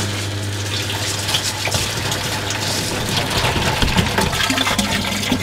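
Small twin-tub washing machine running with a steady low hum while water pours out through its drain hose into a plastic barrel; the flow shows the ice in the drain line has been cleared.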